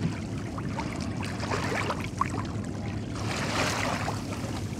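Water splashing and trickling around a small boat as a fishing longline is hauled in, over a low steady rumble.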